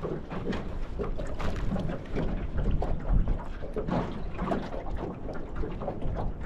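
Wind buffeting the microphone and choppy sea slapping against a small aluminium boat's hull, with irregular knocks and splashes.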